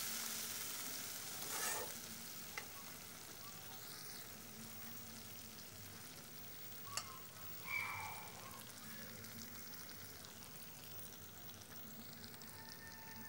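Malabar spinach and dried-fish curry bubbling and sizzling in a karahi as the last of its water cooks off, growing slowly fainter, with a couple of brief clicks.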